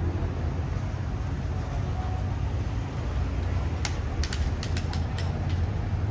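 Outdoor city street noise at a busy pedestrian crossing: a steady low rumble, with a quick run of sharp, irregular clicks about four seconds in.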